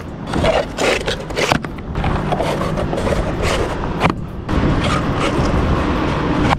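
Cargo strap webbing and plastic edge protectors being dragged and shifted against the edge of a steel plate load, giving irregular scraping and rustling with small knocks, over a steady low rumble.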